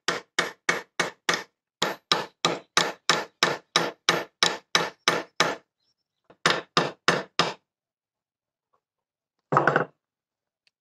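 Hammer rapidly tapping the nail pins of a knife handle to peen them into rivets, with a hammer head as the anvil: quick sharp metal-on-metal strikes, about five a second, in three runs with short pauses between.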